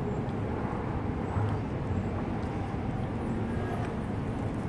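Steady outdoor traffic noise: a low rumble of passing vehicles with no distinct events.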